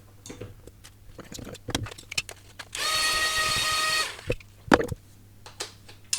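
Clicks and knocks of small tools and parts being handled, with a steady whir from a small electric motor lasting just over a second in the middle.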